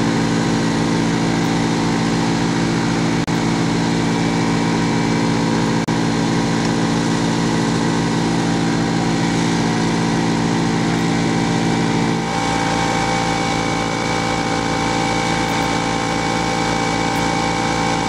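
Engine-driven industrial vacuum unit running steadily under load; its pitch and level drop slightly about twelve seconds in.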